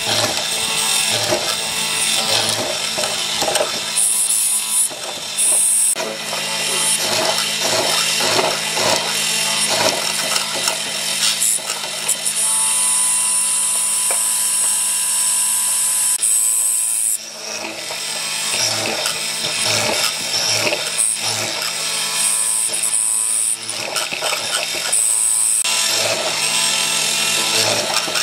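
Benchtop hollow-chisel mortiser running: the motor hums steadily while the auger and square chisel are plunged again and again into a wooden leg, chewing out wood in uneven bursts of cutting noise. In the middle the machine runs free for a few seconds, with a smoother, higher whine, while the leg is slid along to the next cut.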